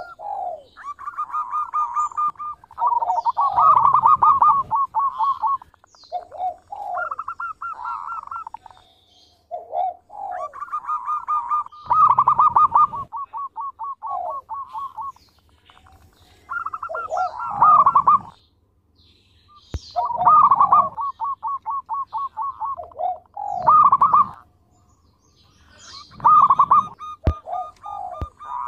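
Zebra dove (perkutut) singing: repeated phrases of fast, rolling coos, each a second or a few seconds long, with short pauses between them.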